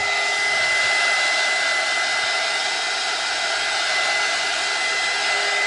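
Handheld hot-air tool blowing steadily: an even rush of air with a constant high whine, drying foil adhesive on the canvas.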